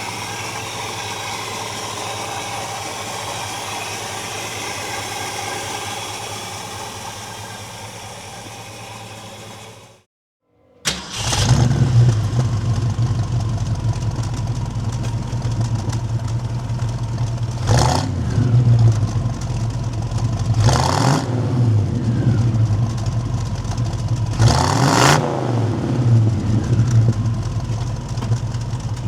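Ford 289 V8 with a four-barrel carburettor, in a 1965 Mustang GT, pulling hard under acceleration, with three short breaks in the note. Before it, a steadier engine sound fades out, followed by a moment of silence.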